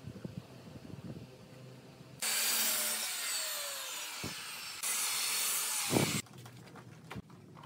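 Sliding miter saw blade cutting through a wooden board, a loud, even rush of sawing in two spells of about two and a half and one and a half seconds that start and stop abruptly. Before it, faint scratching of a pen marking the wood.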